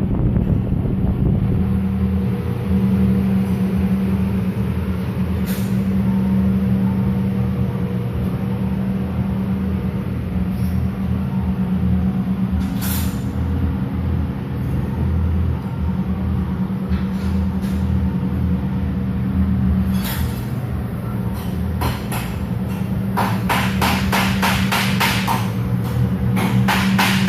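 A car engine running at a steady idle with a deep, even hum, likely heard through its exhaust. A run of quick, regular clicks joins it near the end.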